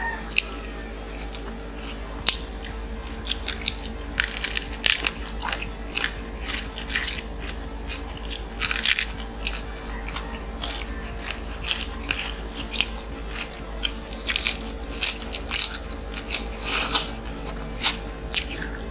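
Close-miked biting and chewing of fried chicken on the bone: a run of irregular, sharp crunches over a steady low hum.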